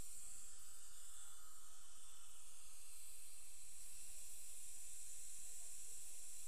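Steady high-pitched hiss with a faint low hum beneath it, unchanging throughout, with no distinct tool clicks or knocks standing out.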